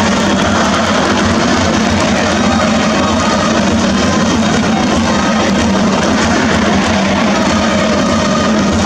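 Baseball stadium crowd cheering continuously, with the home cheering section's chanting and band music, trumpets and drums, playing over it. The sound is loud and steady throughout.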